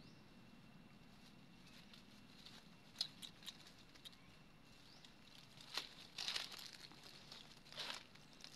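Dry fallen leaves crackling and rustling underfoot as a macaque walks over the leaf litter: a few light crackles about three seconds in, then louder rustling bursts from about six seconds and again near the end.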